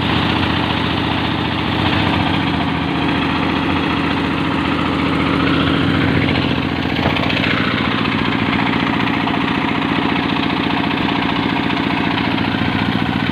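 24-horsepower diesel engine driving the sound rig's generator, running steadily at a constant speed.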